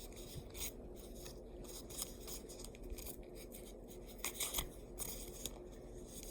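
Freshly sharpened Swiss Army knife blade making a few short, faint cutting strokes, testing its sharpness, over a low, steady hum.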